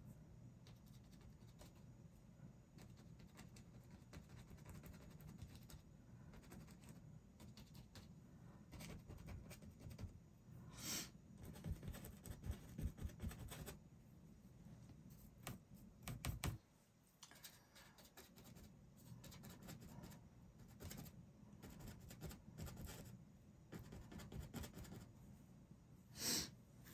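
Faint scratching and dabbing of a paintbrush on canvas, with two louder short brush scrapes about eleven seconds in and near the end, over a low room hum.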